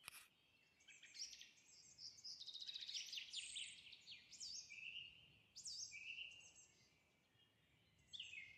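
Faint songbird song: several quick, descending trilled phrases with short pauses between them.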